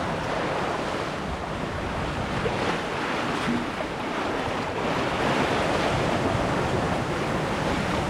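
Wind and lake water rushing along the hull of a sailboat under sail, with wind buffeting the microphone: a steady rushing noise.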